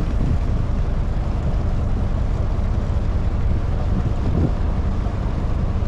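Boat engine running with a steady low drone, with wind buffeting the microphone.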